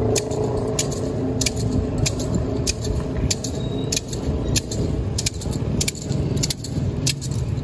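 Penitents' whips, bundles of bamboo sticks on cords, striking their bare backs in a repeated clattering, about two strokes a second. A low rumble of street traffic runs underneath.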